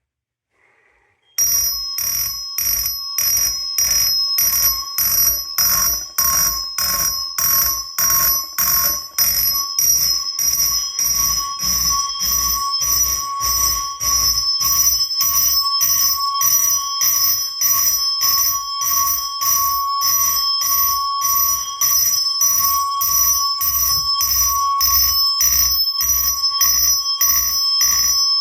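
Fire alarm system going into alarm after a smoke detector is set off. About a second and a half in, the alarm devices start sounding loud rapid repeated strikes, about two to three a second, over steady high ringing tones.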